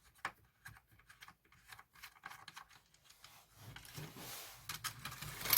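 Scattered small clicks and rubbing as parts of a dismantled cassette player are handled, with a longer rustling stretch around four seconds in and a sharp click at the end.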